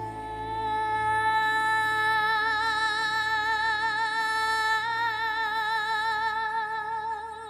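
Film score music: a female voice holds one long sung note with vibrato over a low sustained drone, fading away near the end.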